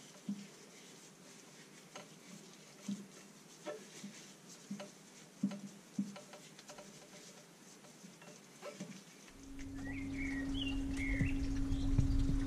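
Gloved hands patting and rubbing dry seasoning into a raw whole chicken: a string of soft, irregular pats and squelches. About nine seconds in, the sound changes to outdoor background noise with a steady hum and a few bird chirps.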